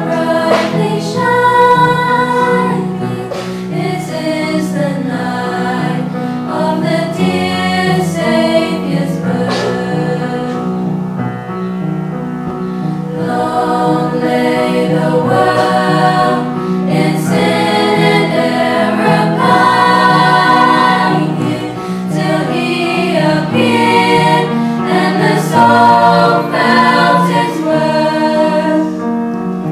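Choir of girls' voices singing together, several parts sounding at once in a slow, sustained piece.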